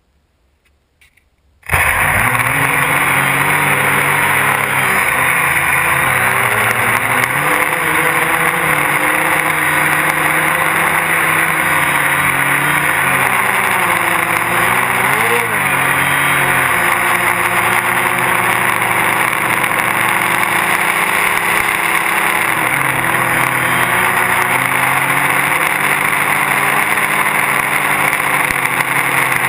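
Gaui 330X quadcopter's electric motors and propellers, heard through the GoPro mounted on the craft. They start abruptly less than two seconds in and run loud and steady through the flight, their hum wavering in pitch with a brief rise about fifteen seconds in.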